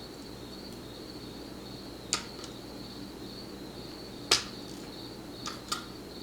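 A few sharp little metallic clicks from the small pin-tumbler lock's pins and springs being handled as the lock is taken apart. The loudest click comes a little past the middle. A steady high-pitched tone sits underneath.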